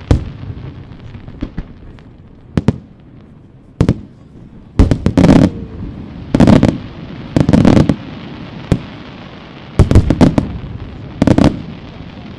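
Aerial firework shells bursting: about a dozen sharp bangs, roughly one a second, some in quick pairs or short clusters, with a steady noisy background between them.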